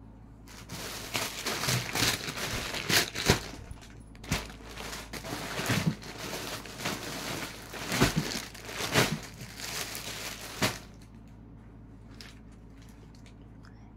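Crinkling and rustling from a folded cotton suit piece and its wrapping being handled, in irregular bursts with sharp crackles. It stops a few seconds before the end.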